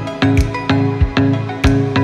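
Background music with a steady beat, about two strokes a second, over held chords.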